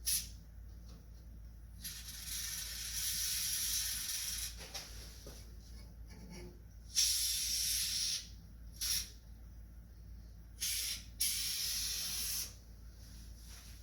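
Aerosol can of Fluid Film lubricant spraying in about five hissing bursts: one long spray of a couple of seconds, then several shorter ones, as the door's window tracks and mechanism are lubricated.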